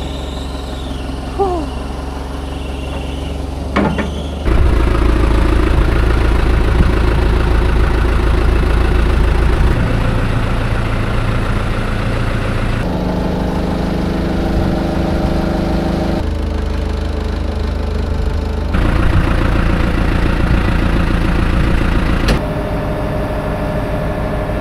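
Tractor engine running steadily while its front loader is worked, with sudden jumps in its pitch and loudness several times.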